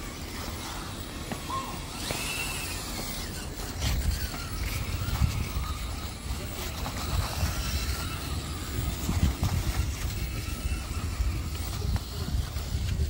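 RC rock crawler with a Hobbywing Fusion Pro brushless motor climbing stone steps, its motor running quietly as the tyres grip and scrabble over the step edges, under steady wind rumble on the microphone.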